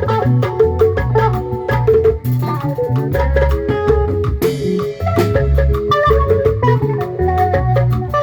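Upbeat band music with a steady, repeating bass line, a regular drum beat and quick, short melodic notes played over it.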